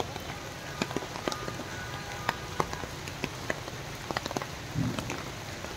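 Heavy rain falling: a steady hiss with irregular sharp taps of drops striking a nearby surface.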